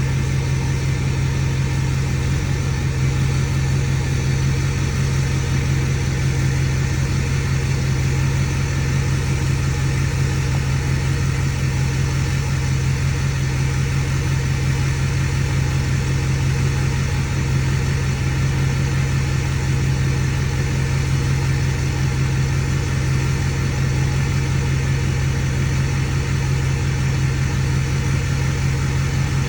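Ford 6.4 Powerstroke V8 turbo-diesel idling steadily while hot after a drive.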